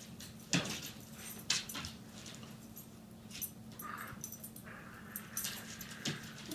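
A puppy playing with a toy: scattered knocks and scuffles, with a short high whine about four seconds in and a fainter, longer one after it.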